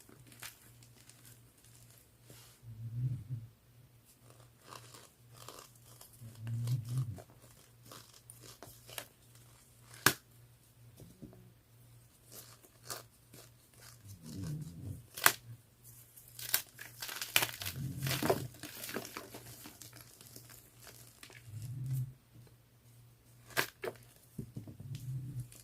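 Fresh blue gym chalk being crushed, with scattered sharp crunches and crumbling crackles that come thickest about two-thirds of the way through. Under it, a dog's soft low snore comes every three to four seconds.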